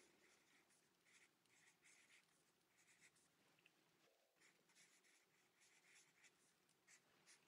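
Very faint scratching of a pen writing in short strokes one after another, pausing briefly about four seconds in.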